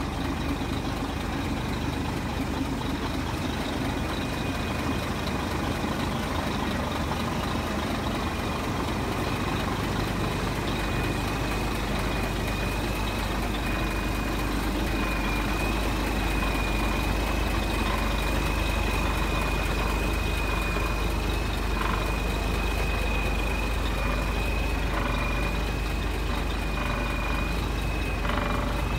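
Scania R480 truck's six-cylinder diesel engine idling steadily, with a thin, steady high whine above the engine hum.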